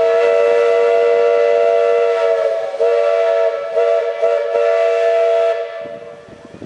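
Steam whistle of a 1947 H.K. Porter 0-6-0T tank switching locomotive blowing one long blast: a chord of several notes held steady with a slight waver in the middle, stopping near the end.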